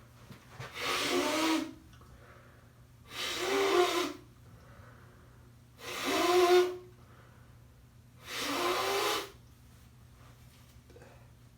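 Four nose blows into a tissue, each about a second long and a couple of seconds apart, with a honking tone, from a nose blocked up by pollen allergies.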